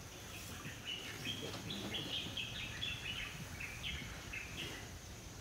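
A bird calling: a quick run of about a dozen short, high notes, each falling in pitch, about three a second, starting about a second in and stopping shortly before the end.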